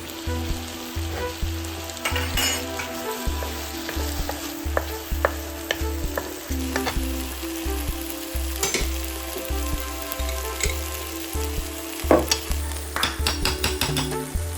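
Food sizzling in a frying pan while it is stirred, with scattered clicks and scrapes of the utensil against the pan.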